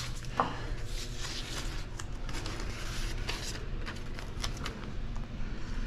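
Masking tape and plastic masking sheet being handled: irregular crinkling and light ticks with a few short rustling pulls, and a sharp click right at the start.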